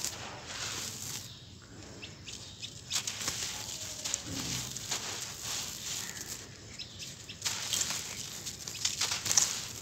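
Dry, dusty sand-cement scooped up and crushed between bare hands: a gritty crunching full of small crackles, with grains trickling and pouring down as the clumps break apart. The crunches grow louder and denser near the end.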